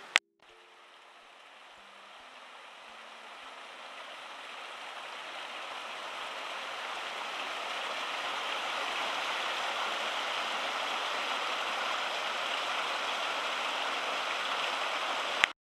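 Mountain stream running over rocks, a steady rush of water that fades in and grows louder over the first several seconds, then holds steady.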